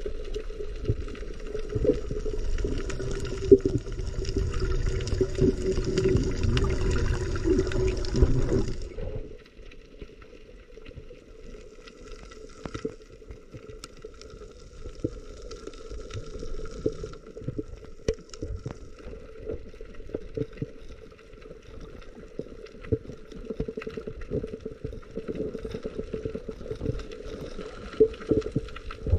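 Water sloshing and gurgling around the camera, then about nine seconds in it drops suddenly to a quieter underwater sound full of small clicks and crackles, as the camera goes under the surface.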